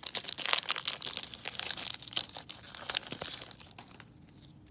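Foil wrapper of a Yu-Gi-Oh! booster pack being torn open and crinkled: a dense run of sharp crackles that dies down near the end.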